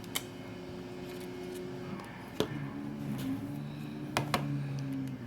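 A few short, sharp clicks from small tools and phone parts being handled, over a steady low hum of several tones whose pitch drops about halfway through.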